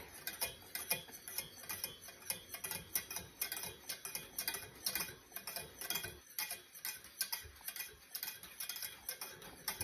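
A metal utensil ticking and scraping against a small stainless steel saucepan while stirring water and pectin at a rolling boil: quick, uneven light clicks, several a second.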